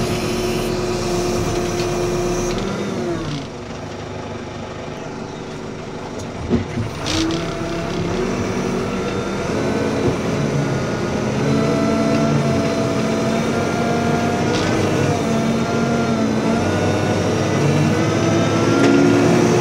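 Backhoe loader's diesel engine running under working load as the boom swings and the bucket works. The engine note drops about three seconds in and builds back up from about seven seconds, with a couple of knocks in between.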